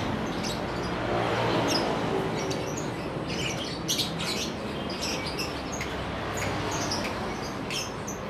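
A shop full of caged lovebirds chirping: many short, high calls overlapping at random.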